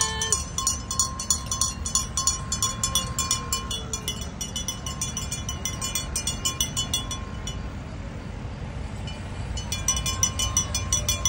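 Tractor engines running as they pass, a low rumble under a rapid, regular ticking and a steady high whine. The ticking and whine drop away for a couple of seconds about two-thirds through, then return.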